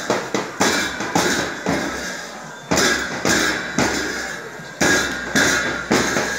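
Marching drums beaten in a steady rhythm, about two strokes a second, each stroke carrying a bright, ringing wash above it, with a short break in the beat partway through.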